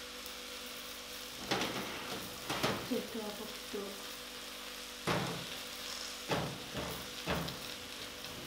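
Vegetables sizzling on a hot metal roasting tray in a gas oven, with a handful of sharp knocks and scrapes as the tray is handled on the oven rack.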